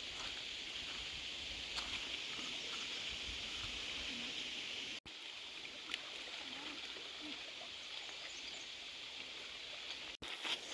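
Steady, high-pitched outdoor hiss with a few faint rustles and ticks. It cuts out briefly twice, at about five seconds and again near the end.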